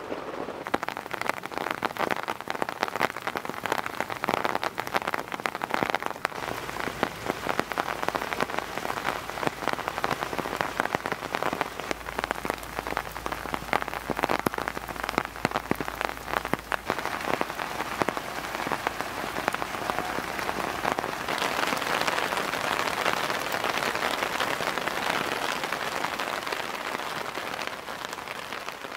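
Heavy rain pattering on a camping tent and tarp, a dense patter of individual drops. About two-thirds of the way through it turns into a smoother, slightly louder steady hiss, then fades near the end.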